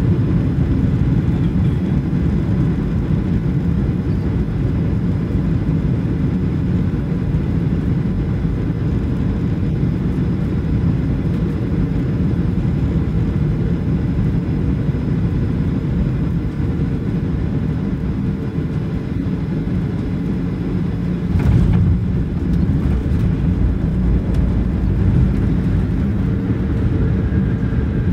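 Inside the cabin of a Boeing 737-700: a steady low roar from its CFM56-7B engines and the airflow on final approach. About 21 seconds in there is a short thud as the main wheels touch down, followed by a heavier rumble as the jet rolls out on the runway.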